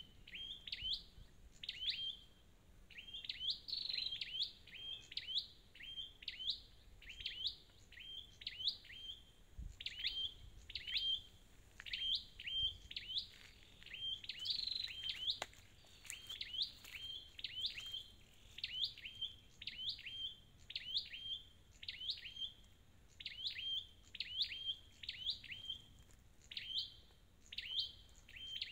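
Scarlet-backed flowerpecker calls: sharp, high notes that drop quickly in pitch, repeated in a steady rapid series about twice a second.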